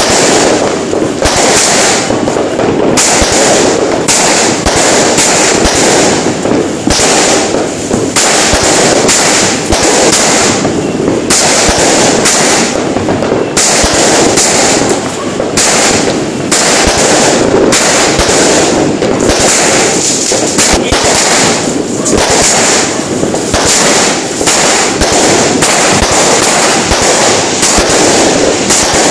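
Aerial fireworks bursting one after another, a loud, unbroken stream of sharp pops and crackles with heavier bursts every second or so.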